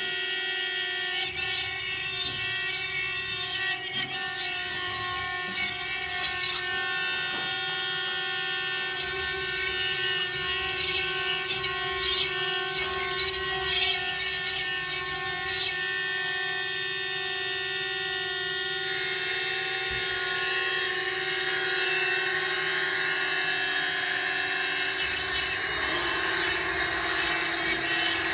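CNC stone-engraving router at work: the spindle runs with a steady whine while the bit grinds into the stone, the cutting hiss growing louder about two-thirds of the way through and the whine dipping slightly in pitch near the end.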